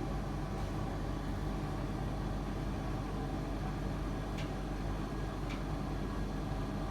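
Servis Caress M2010 tumble dryer running steadily, its motor and turning drum giving an even hum, with two faint ticks in the second half.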